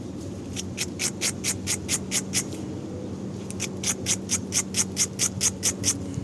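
Brush scrubbing the threads of a wheel-hub mounting bolt in quick back-and-forth strokes, about five a second, in two runs with a short pause around the middle.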